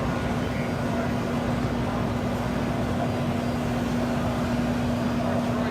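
Steady din of a busy machine-tool exhibition hall, with a constant low hum running throughout.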